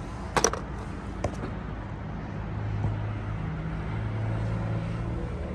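Metal engine parts being handled: a sharp clatter about half a second in and a lighter knock a second later. Under them runs a low steady hum that swells from about two and a half seconds in.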